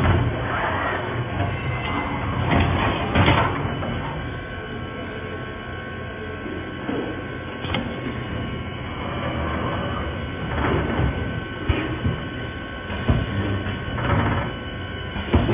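Automatic spot welding machine for fan-shaped wire racks running: a steady mechanical din as the fixture carriage travels along its rails, broken every few seconds by short sharp clacks.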